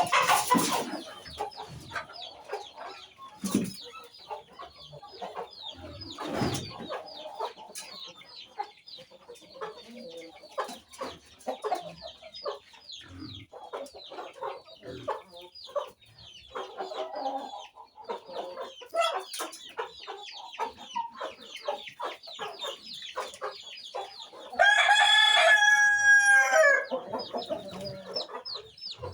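A flock of chickens clucking and cheeping continuously. Near the end a rooster crows once, a loud held call of about two seconds.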